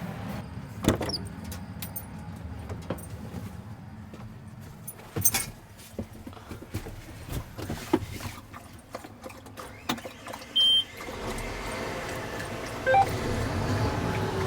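Vehicle sounds: scattered clicks and knocks, a short high beep about ten and a half seconds in, then a steady low engine hum that grows louder near the end.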